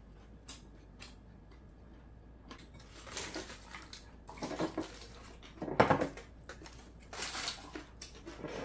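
Aluminium foil crinkling in short bursts as a wrapped kimbap roll is opened, with clinks of chopsticks and dishes on a table; one sharp clink about six seconds in is the loudest sound.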